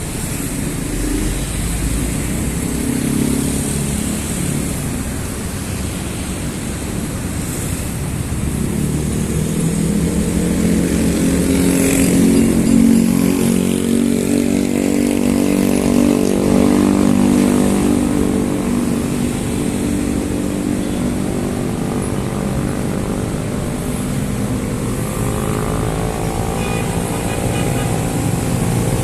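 Busy city road traffic with steady engine and tyre noise. One vehicle's engine hum builds from about nine seconds in, is loudest a few seconds later, then fades, and another engine rises in pitch near the end.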